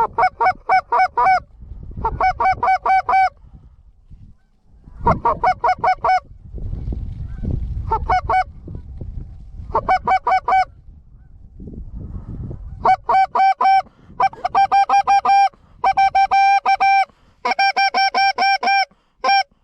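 Goose call blown in quick runs of loud honks and clucks, several bursts of rapid calls with short pauses between them, working approaching geese.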